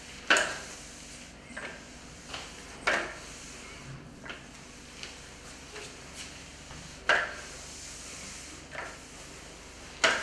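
Double-roller sponge mop knocking and clacking on a tile floor as it is pushed about: a run of sharp plastic clacks, four loud ones a few seconds apart with softer taps between.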